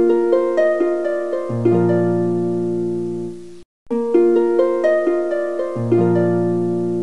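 Short intro jingle of quick plucked notes climbing over a held low chord, played twice with a brief break about three and a half seconds in.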